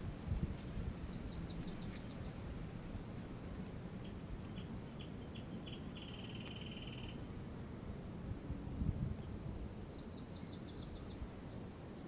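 Small birds singing outdoors: a rapid high trill about half a second in and again about ten seconds in, and a short run of ticks leading into a lower buzzing trill around five to seven seconds. A steady low outdoor rumble runs underneath.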